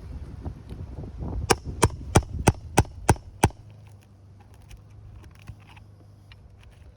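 Hammer striking seven times in quick succession, about three blows a second, then stopping.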